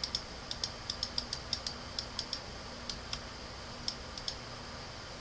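Quick, light clicks from a computer pointing device as paint is dabbed on screen: about a dozen in the first two and a half seconds, then a few sparser ones, over a faint steady high whine.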